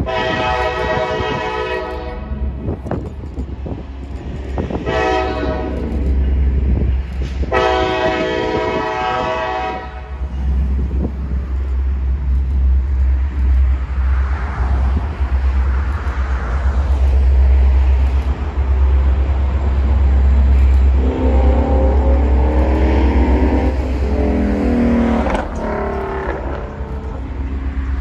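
Norfolk Southern locomotive air horn sounding a long blast, a short blast and another long blast over the heavy low rumble of the train. Later a lower, wavering tone rises over the rumble for a few seconds.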